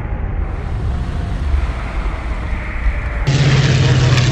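Deep rumble of a quarry rock blast, with broken rock and debris tumbling down the face. About three seconds in it cuts abruptly to a different outdoor recording: a hiss with a steady low drone and a few clicks.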